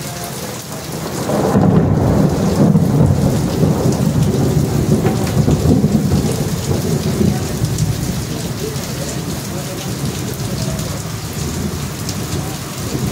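Steady rain falling, with a long rolling rumble of thunder that builds about a second in and slowly dies away over the next several seconds.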